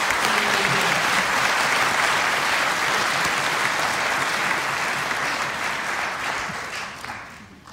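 Audience applauding steadily in a large hall, fading out near the end.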